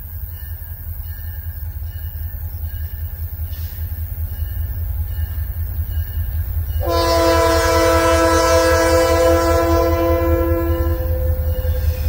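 Diesel freight locomotives approaching, a low rumble growing steadily louder, then about seven seconds in a long blast of the locomotive's multi-chime air horn, several notes sounding together as a chord, held for about four seconds.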